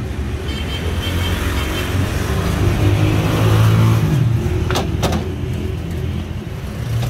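A motor vehicle's engine running close by in street traffic, growing louder to a peak about three to four seconds in and then easing off. Two sharp clicks come close together about five seconds in.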